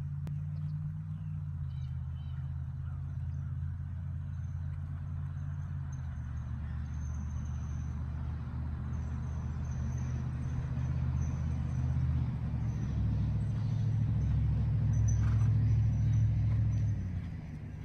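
An engine running steadily with a low drone whose pitch shifts in steps. It grows louder toward the end, then drops away sharply about a second before the end.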